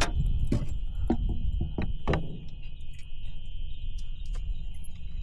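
A steady high-pitched insect drone, with several sharp clicks and knocks of fishing tackle being handled in the boat during the first two seconds.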